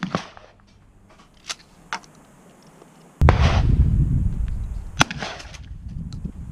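Shotgun shots at clay targets: a crack right at the start, then two more shots about two seconds apart from about three seconds in, the first of these followed by a low rumble for a couple of seconds.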